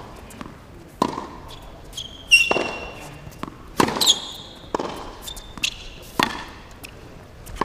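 Tennis ball being struck by rackets and bouncing on a hard court in a rally, a sharp pop every second or so, with tennis shoes squeaking on the court a few times.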